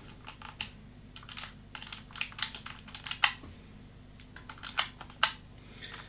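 Irregular clicks and clacks from a Razer Huntsman opto-mechanical keyboard as keycaps are pushed onto their clicky switches and pressed, a few clacks louder than the rest.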